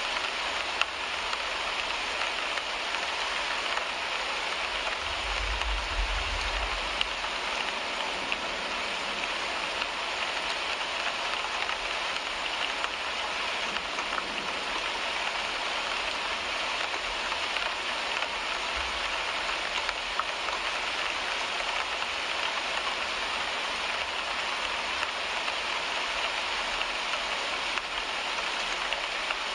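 Rain pattering steadily on a car windshield, a dense, even hiss of drops striking the glass. A brief low rumble comes in about five seconds in.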